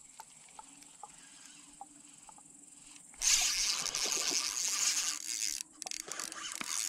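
A steady high insect buzz with a few soft ticks. About three seconds in, a loud rushing, splash-like noise lasts a couple of seconds, then breaks into shorter bursts.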